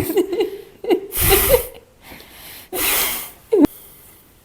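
Stifled laughter: two breathy bursts about a second and a half apart, with small squeaky sounds between them.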